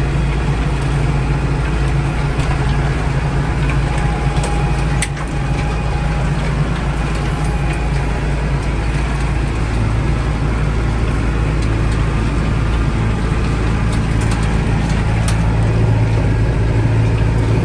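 Farm tractor engine running steadily while the tractor works the crop sprayer, with a constant rushing noise over the engine note. About halfway through, the engine's note drops slightly and stays there.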